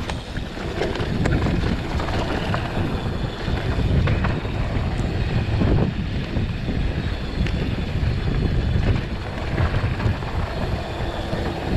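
Wind buffeting the microphone of a handlebar-mounted camera on a mountain bike descending a dry dirt singletrack, over the crunch of tyres on loose dirt and the rattle of the bike over bumps, with many small knocks and clicks.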